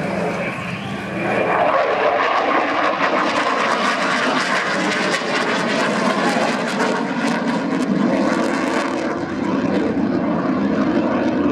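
Eurofighter Typhoon's twin EJ200 turbofan engines in flight: loud jet noise that swells about a second in and stays loud, with crackling through the middle.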